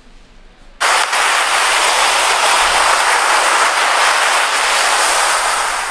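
Steady hiss from the Poco M2's single speaker as a music video starts playing on it; it starts suddenly about a second in and fades out near the end.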